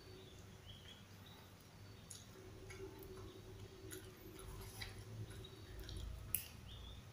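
Quiet chewing and small crisp clicks as fresh lamtoro (leucaena) leaves are picked off their stems by hand, with one sharper click a little after six seconds.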